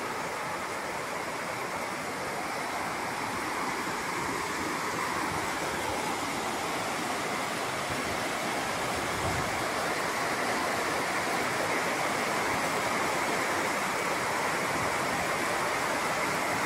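Heavy rain pouring straight down in still air, a steady even hiss of water that grows slightly louder toward the end.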